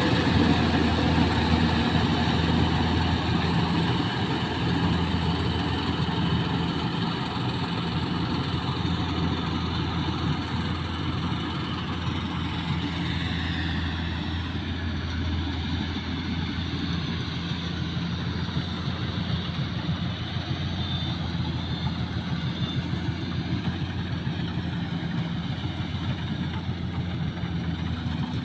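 Rice combine harvester's engine running steadily with a low hum, easing slightly quieter over the first few seconds.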